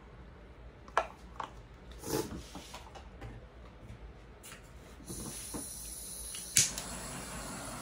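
A few knocks and clatters as cups and tools are set down. About five seconds in, a handheld gas torch starts hissing, with a sharp click about a second later as it lights. The torch is being readied to go over a wet acrylic pour.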